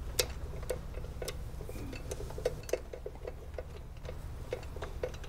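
Ratchet wrench clicking in short, irregular runs as the bolts holding the oil pump cover on a shovelhead engine are backed out, over a low steady hum.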